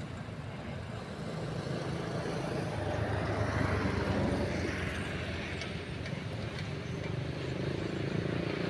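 Low engine rumble of road traffic, swelling as a vehicle passes about three to four seconds in, then easing off and rising again near the end.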